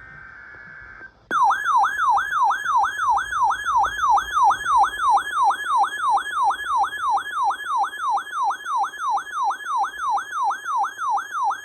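Electronic alert siren of a weather-radio tornado warning: a tone sweeping downward over and over, nearly three times a second, starting about a second in after a short, faint steady tone.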